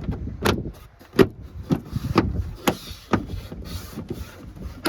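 Plastic liftgate trim panel on a 2017 Lexus RX350 being pressed home by hand, its retaining clips snapping into place with a series of about six sharp knocks, roughly one every half second.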